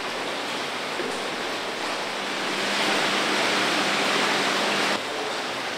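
Steady rush of running water in a fish hatchery, with a faint low hum under it. The rush grows louder about two seconds in, then drops back and the hum stops about five seconds in.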